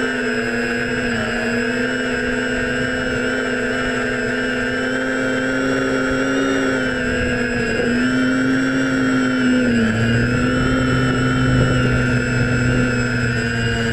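DJI F550 Flamewheel hexacopter's six brushless motors and propellers whining steadily in flight, heard from the GoPro on its frame. The whine shifts a little in pitch several times as the motor speeds adjust.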